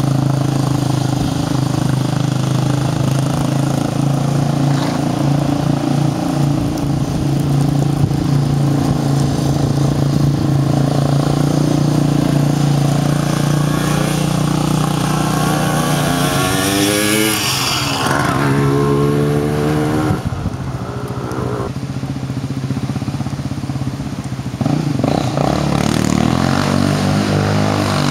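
Yamaha Raptor 700 sport quad's single-cylinder four-stroke engine running hard as it is ridden through wheelies and spins. Its pitch holds fairly steady at first, then sweeps up and down quickly a few times as the throttle is blipped, about two-thirds of the way in and again near the end.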